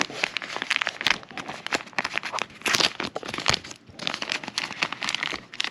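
Plastic packaging crinkling and rustling as small drone accessories are handled and unwrapped, in irregular crackles with a louder burst about halfway through.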